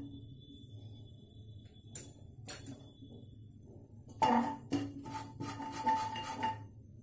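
A metal spoon clinking against the inside of a pressure cooker as dry spice powder is tapped in. There are a couple of single clicks, then a quick run of ringing clinks from about four seconds in to six and a half seconds.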